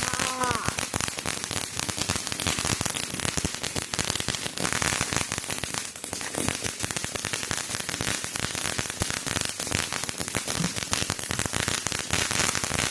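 Firework crackling continuously: a dense, steady stream of small rapid pops.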